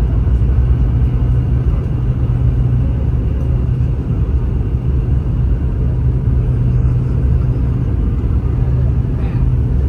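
Steady low cabin rumble inside a Boeing 717 airliner in flight: engine and airflow noise with a constant deep hum and no change in level.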